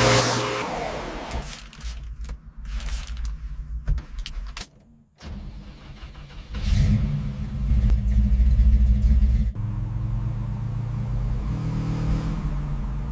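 Car engine running, louder and revved for about three seconds in the middle, then settling back to a steady run.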